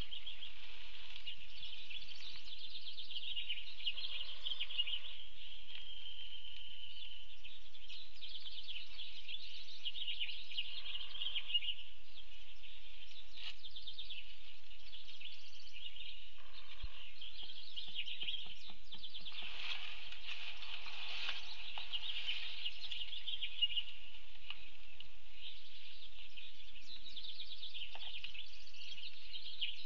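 Steady chorus of small birds chirping and singing in the background, with one longer, smooth whistled note about five seconds in.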